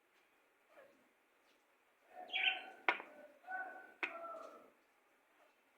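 A bird calling: two loud pitched calls in quick succession starting about two seconds in, each with a sharp click, after a faint short call.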